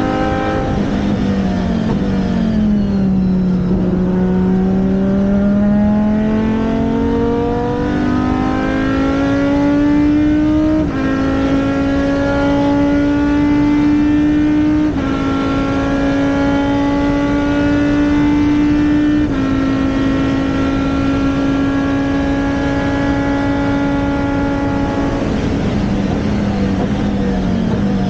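Racing car engine running hard and continuously. Its pitch dips, then climbs slowly and holds nearly steady with a few small steps, and falls again near the end.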